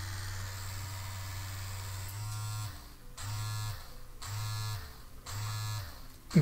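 PHILOTOYS wand massager vibrating with a steady low buzz. About two seconds in it changes to a pulsing setting, buzzing on and off about once a second, four times.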